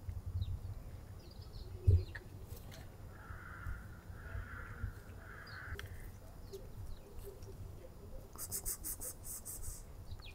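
A cat eating wet food from a plastic tub, with faint chewing clicks and a sharp knock about two seconds in. A bird caws three times in the middle, and a quick run of high chirps comes near the end.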